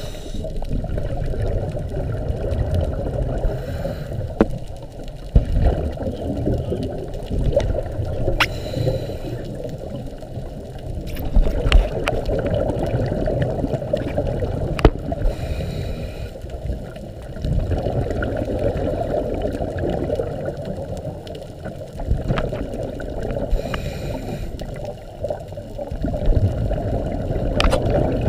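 Muffled underwater noise heard through a GoPro's waterproof housing, with a scuba diver's exhaled bubbles swelling every few seconds. A few sharp clicks stand out.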